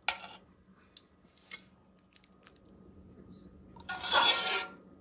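A metal serving spoon scooping chicken and dumplings from a stainless steel stockpot. There is a short wet scrape at the start and a couple of faint clicks, then a longer slosh of broth and scrape of spoon against the pot, the loudest sound, about four seconds in.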